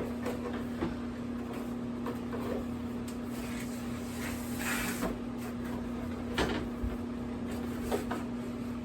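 Rustling, scraping and light knocks of foam leg pieces being worked over an animatronic's leg poles, over the steady hum of a room fan.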